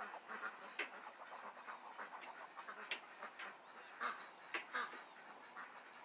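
Small flock of domestic ducks with hens among them, giving faint scattered quacks and low calls mixed with many short, sharp clicks.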